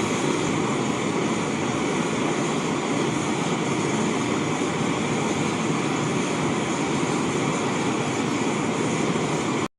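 Butane-propane canister stove burner running at full flame: a steady rushing hiss that cuts off abruptly near the end.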